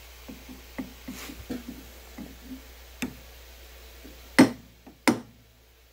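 Small ball-peen hammer tapping a brass part in a lathe's four-jaw chuck to nudge it into true: a run of light taps, then two sharp, much louder blows near the end, about two thirds of a second apart.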